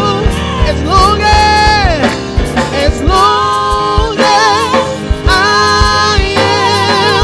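Live gospel worship music: a woman sings long held, wordless runs with a wavering vibrato into a microphone over keyboard accompaniment and a steady beat.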